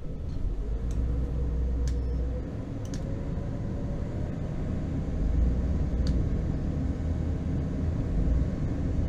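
Trawler yacht's inboard engine rumbling low under load, swelling and easing as the throttle and gear lever are worked to manoeuvre the boat in shallow water, with a few light ticks.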